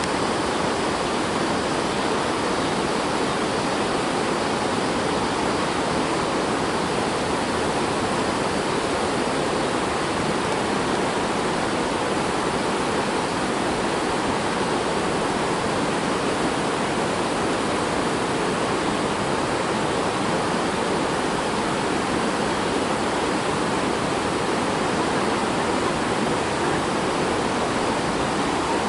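A steady rushing hiss that holds an even level throughout, with no distinct events in it.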